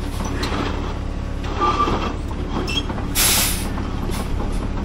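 Heavy diesel engines running steadily, with a brief squeal about a second and a half in and a short, loud hiss of released air, like an air brake, a little past three seconds.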